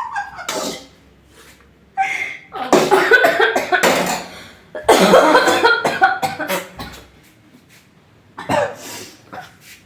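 A person coughing in several harsh fits with short pauses between them, choked by the pungent fumes of dried red chillies and chilli powder cooking in a pan.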